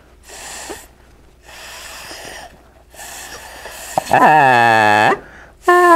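Homemade membrane instrument, a glove stretched over a cut-off mustard container, blown through a side hole so the air pushes past a straw against the membrane, which is held down with a finger. First three breathy puffs of air with no tone, then about four seconds in a loud, terrible buzzing honk whose pitch dips and rises, cutting off after about a second; a second tone starts just before the end.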